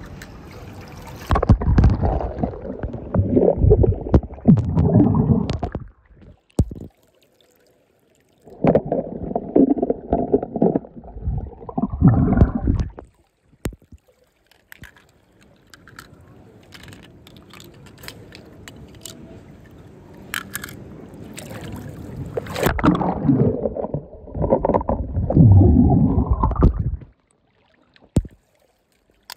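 Water splashing and gurgling as small toy cars are moved through it, in three loud stretches of a few seconds each.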